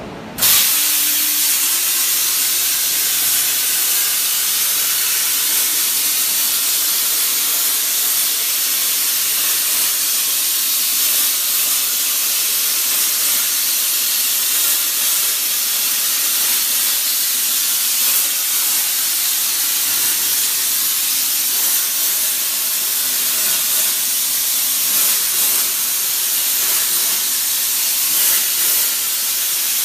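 A 200A CNC plasma cutter's torch cutting, a loud steady hiss that starts abruptly about half a second in and holds at an even level.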